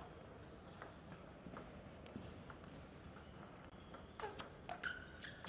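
Table tennis rally: the plastic ball clicks sharply off the rubber-covered paddles and the table, back and forth, with the hits louder after about four seconds. A few short squeaks near the end, typical of players' shoes on the court floor.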